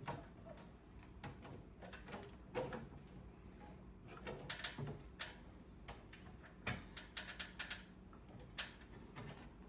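Irregular light clicks and knocks of plastic air-conditioner parts being handled and fitted back into place during reassembly.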